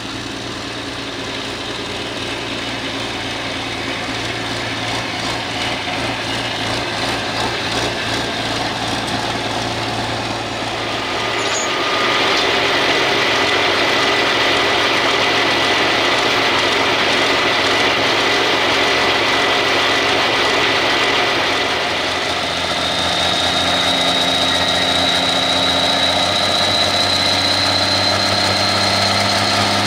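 Turbocharged diesel engine of an International Harvester pulling tractor idling, getting louder about twelve seconds in. A high whine runs over it and, in the last several seconds, slowly rises in pitch.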